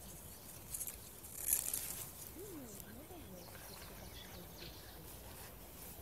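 Short rustling close to the microphone, twice, the louder about one and a half seconds in, followed by a faint distant voice.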